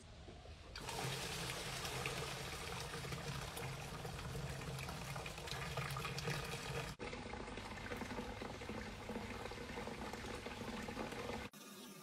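Water spraying and pouring into the clear acrylic cylinder of a homemade hair-washing machine, filling it up around an upside-down head. It is a steady rush of water that starts about a second in, breaks off briefly once, and cuts off suddenly near the end.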